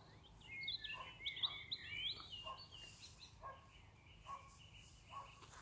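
Bird chirping: a quick flurry of chirps in the first two seconds, then fainter, scattered calls.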